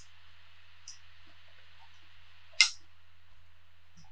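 Quiet eating sounds while a fork works a plate of herring and onions: a few soft clicks and one sharper click about two and a half seconds in, over a steady low hum.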